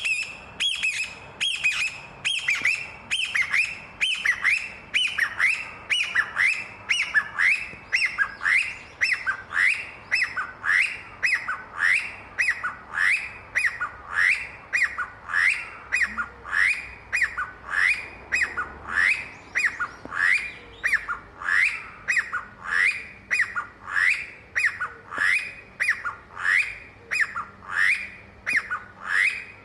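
Chinese bamboo partridge calling: a long, steady series of short, loud, upward-sweeping calls, about three every two seconds.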